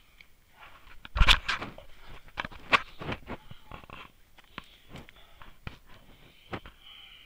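Footsteps crunching and scraping on a stony, leaf-strewn dirt path, with a heavy knock about a second in, and the walker's hard breathing behind them.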